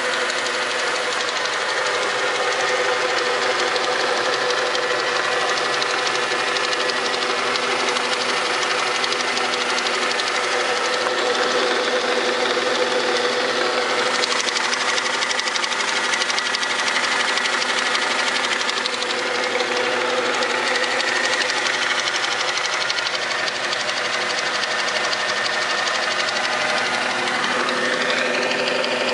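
Bridgeport 1J vertical milling machine, a belt-driven step-pulley J-head, running under power: a steady mechanical hum with a few steady tones that holds unchanged throughout.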